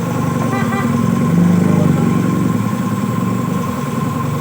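Small motorcycle engine running steadily, swelling slightly about a second and a half in as if given a little throttle.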